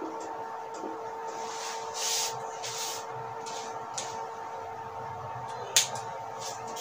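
Whiteboard marker scratching out a few short strokes about two seconds in, then a couple of sharp light clicks, over a steady faint hum.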